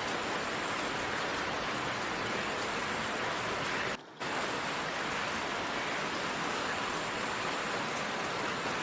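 Steady heavy rain, a downpour, an even hiss without thunder. It cuts out for a moment about four seconds in.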